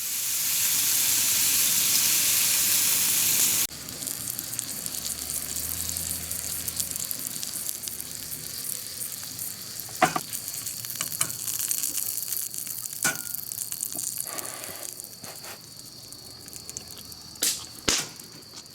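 Food sizzling as it fries in a pan, with a few sharp clicks of utensils against the pan. The sizzle is loud for the first few seconds, then quieter after a sudden drop about four seconds in.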